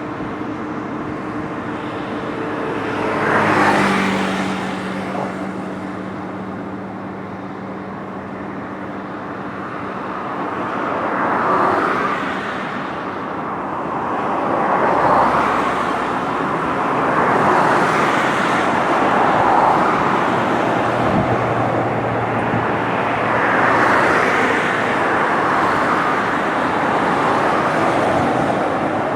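Road traffic passing close by on a bridge: a steady rush of tyres and engines, with about six vehicles swelling up and fading as they go past.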